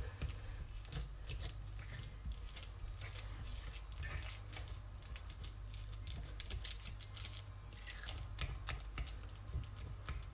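Metal fork mashing ripe banana in a glass bowl: quick, irregular clicks and scrapes of the tines against the glass.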